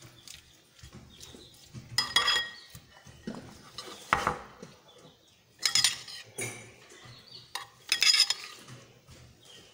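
A metal spoon scraping and clinking against a bowl as shredded cabbage is stirred into a yogurt-and-mayonnaise dressing, in about five separate strokes with short pauses between them.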